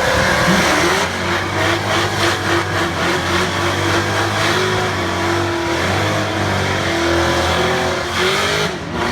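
Drag-race cars doing burnouts: engines held at high, fairly steady revs with spinning-tyre noise, starting suddenly and easing off near the end.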